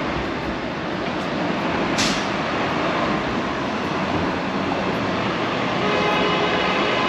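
Toronto streetcar running along its rails amid street traffic. A short sharp hiss comes about two seconds in, and a steady hum with several tones sets in near the end.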